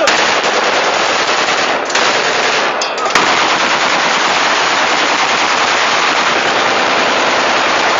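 Celebratory automatic gunfire from AK-47 rifles: rapid, overlapping shots that run together into a continuous crackle, with two brief breaks about two and three seconds in.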